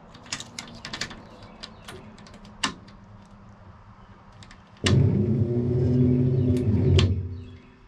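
Keys clinking in a truck's ignition switch as it is worked, then about five seconds in an electric inline 12-volt fuel pump suddenly starts with a loud, steady hum and dies away near the end. The pump comes and goes as the key is moved, which the owner takes for a faulty ignition switch.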